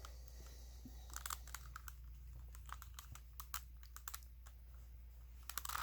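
Faint, irregular plastic clicks of a Rubik's cube being turned and handled, with a quick run of clicks near the end.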